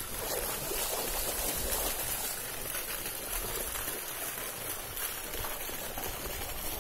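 Steady rush of running, splashing water.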